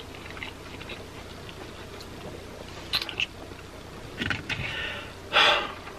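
A few small clicks over low steady room noise, then short rustles from about four seconds in, the loudest a brief rustle about five and a half seconds in as a hand reaches across the paper food packaging.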